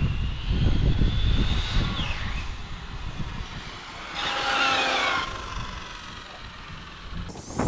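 Arrma Limitless RC car's electric motor whining, faint at first, then a louder whine that falls in pitch about halfway through as the car passes. Wind buffets the microphone in the first few seconds.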